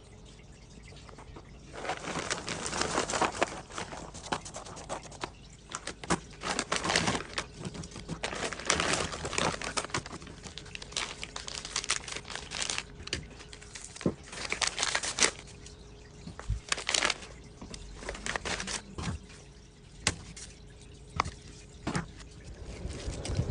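Irregular rustling and clatter with water-like splashing and sharp clicks, over a faint steady hum.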